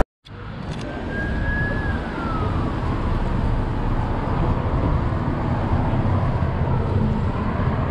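Road traffic noise: a steady rumble of passing vehicles. A thin tone holds and then falls in pitch about a second in.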